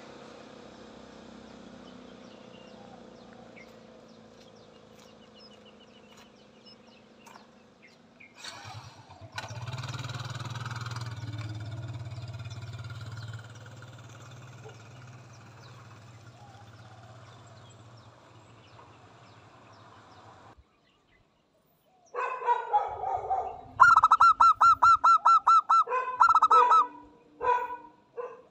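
Zebra dove cooing: a loud run of rapid, trilling staccato coos starting about two-thirds of the way in, repeated in several phrases. Before that there is only faint background noise with a low hum.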